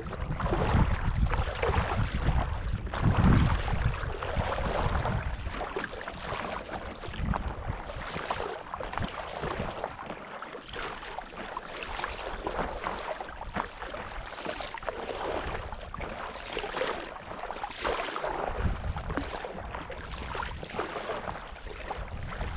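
Kayak paddles dipping and splashing in lake water, stroke after stroke. Wind buffets the microphone for the first few seconds.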